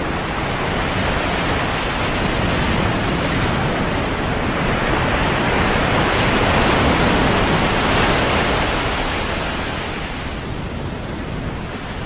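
Calm sea waves washing in, a continuous rushing surge that swells to its loudest about seven seconds in, then eases off near the end as the water draws back.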